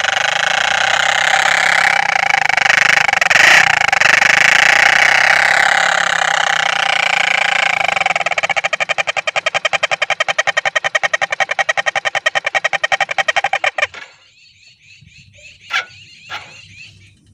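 Motorcycle exhaust through an oversized aftermarket silencer: the engine is revved for several seconds, then settles into a fast, even train of exhaust pulses. It cuts out suddenly about 14 seconds in, with two short sharp sounds in the quiet, and the pulsing starts again just at the end.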